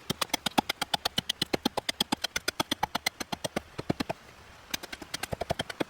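Rapid, even knocking on a composite panel, about eight strikes a second, as it is battered in an attempt to break it. The panel does not give. The knocking stops briefly after about four seconds, then starts again.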